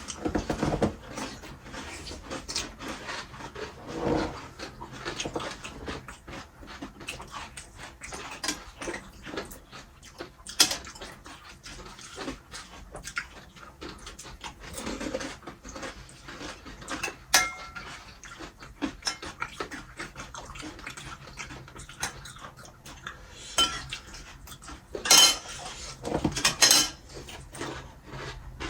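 Irregular clinks and knocks of dishes and utensils as pani puri is eaten, with a couple of louder clatters near the end.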